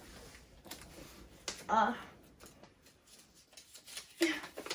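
Soft rustling and small clicks of paper and plastic parts being handled, with two brief voice sounds, one about two seconds in and one near the end.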